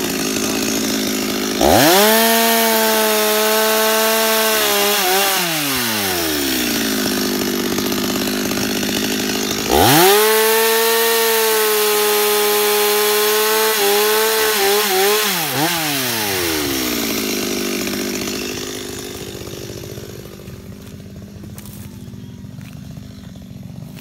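Two-stroke chainsaw revved up to full throttle twice, at about two seconds and about ten seconds in, each time held for a few seconds while cutting through tree branches and then falling back. The saw runs quieter for the last few seconds.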